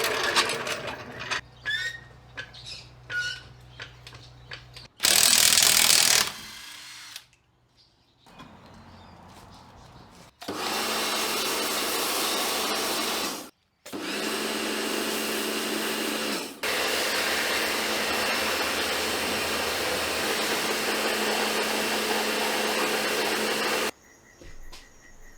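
A power tool running steadily in two long stretches, about three seconds and then about ten seconds, with a short break between; a short loud burst of noise comes before it, about five seconds in.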